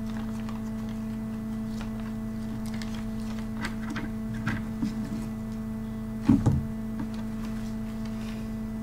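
Steady electrical hum at a few fixed pitches, with a few faint clicks and a short louder thump about six seconds in.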